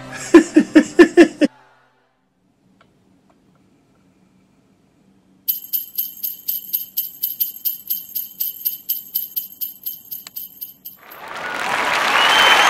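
A short burst of laughter, then a pause, then jingle bells shaken in a steady rhythm, about four shakes a second, for about five seconds. Applause swells up near the end.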